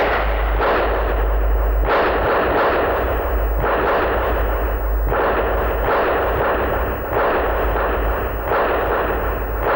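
A fusillade of rifle fire: a fresh burst of shots every second or two, each ringing on into the next so the firing never lets up.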